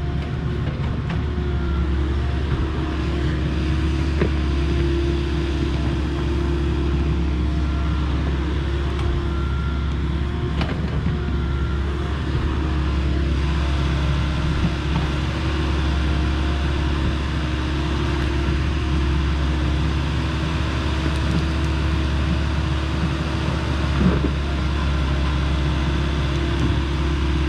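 Volvo ECR58D compact excavator running steadily while it digs, swings and lowers its bucket of mud, with a high tone coming and going over the engine. A few short knocks, the clearest about 24 seconds in.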